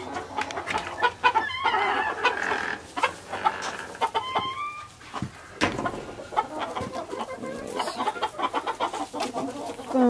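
Chickens clucking, with short rising calls about a second and a half and four seconds in. Clicks and knocks from a wooden coop door being opened and handled run through it.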